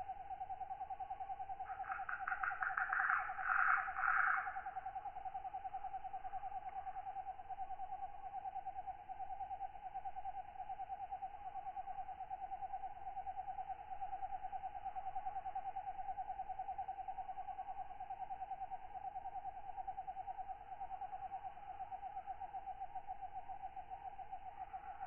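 Night insect chorus: a steady, fast-pulsing trill runs throughout, with a louder rasping katydid call from about two to four seconds in.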